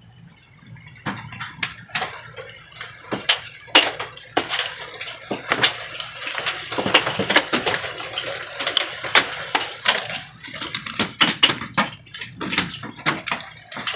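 Hail and heavy rain hitting the roof and windows of an RV, heard from inside. It is a steady hiss of rain under a dense, irregular patter of sharp hits, which grows thicker about four seconds in.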